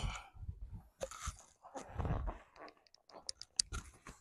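A stiff new waxed-suede Chelsea boot with a wedge sole being pulled off the foot by hand: irregular leather rubbing and scuffing, with a few sharp little clicks a little after halfway.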